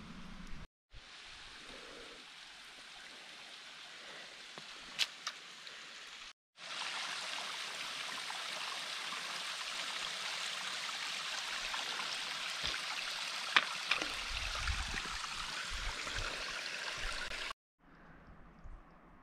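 Water of a small rocky seasonal creek trickling and running steadily over stones, louder from about six seconds in, with brief dropouts where the shots change.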